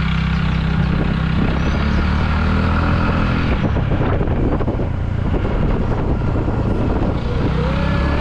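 A vehicle's engine running steadily, heard from on board while riding along a rough dirt road, with road and wind noise over it.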